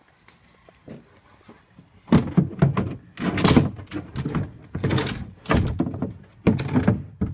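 Molded plastic toddler-bed parts knocking and thunking as they are handled and pushed into place: a few small clicks, then from about two seconds in a rapid, loud series of thunks.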